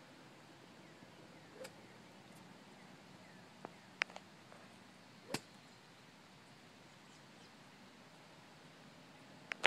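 Quiet open-air background hush with a few faint, sharp clicks scattered through it, the loudest about five seconds in.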